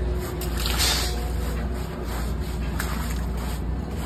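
A long-handled brush scrubbing the wet face of a sculpted cement artificial rock, with water splashing and trickling, over a steady low rumble.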